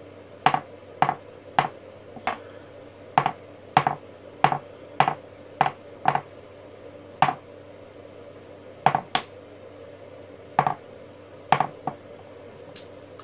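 Small AA/AAA batteries dropped a few centimetres onto a workbench top one after another: about seventeen sharp clicks, a few followed at once by a second tap as the cell bounces. This is a drop test of charge: a full cell lands with a heavy, dead sound, while a spent one bounces.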